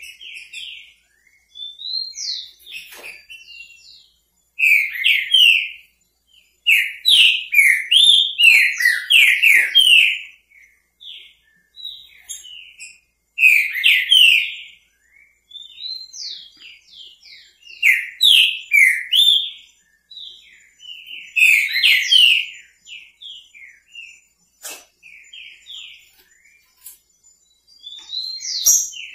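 Green-winged saltator (trinca-ferro) singing the repeated 'bico fogo' song, loud whistled phrases of several notes coming back every few seconds, with softer notes between them.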